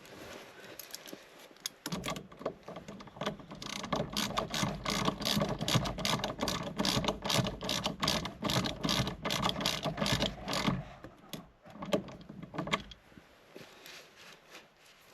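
Rapid mechanical ratcheting clicks, like a ratchet wrench or winch gearing being worked, starting about two seconds in. They run fast and dense for around nine seconds, then thin out to a few scattered clicks before stopping.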